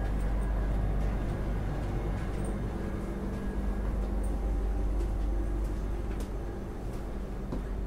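Steady deep rumble inside the cabin of an ESh2 Eurasia (Stadler KISS) double-deck electric train, with a faint steady hum and a few light clicks.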